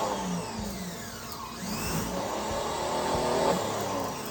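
Power washer running, its motor and pump going steadily, with a whine that slides down in pitch several times.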